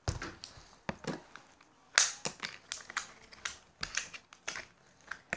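Slime being squeezed and stretched by hand, making irregular small clicks and pops, the loudest about two seconds in.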